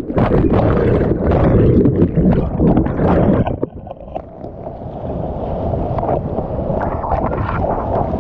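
Whitewater rushing and splashing hard around a kayak and over the camera's microphone as the boat runs a steep rapid, with many sharp splashes. It drops suddenly to a quieter, steadier rush of water about three and a half seconds in.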